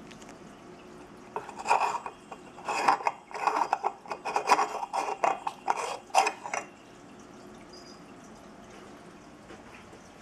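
A light bulb being turned by hand in a desk lamp's socket: a run of irregular scraping and clicking for about five seconds that stops well before the end.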